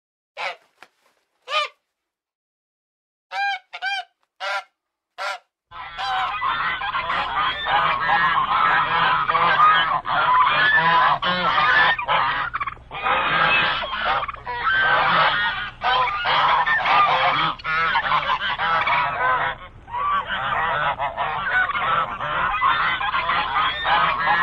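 Geese honking: about six single honks spaced apart over the first five seconds, then from about six seconds in a flock honking continuously, many calls overlapping.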